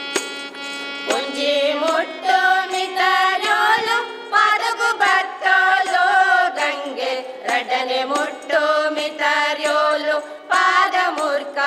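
A song in which a singer holds long, wavering notes over a steady drone. The voice comes in about a second in.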